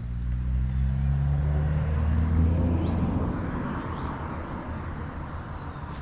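A motor vehicle's engine passing by, swelling to its loudest a couple of seconds in and then fading away as its pitch drops slightly. Faint bird chirps come through twice.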